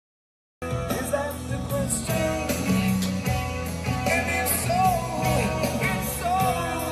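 Rock music with a singing voice cuts in abruptly from dead silence about half a second in and carries on at full level.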